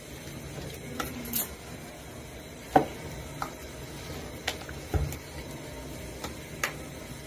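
A hand kneading spice paste into pieces of silver pomfret (rupchanda) fish in a plastic bowl: soft wet rubbing with scattered clicks and taps against the bowl, the sharpest about three seconds in, and a dull thump about five seconds in.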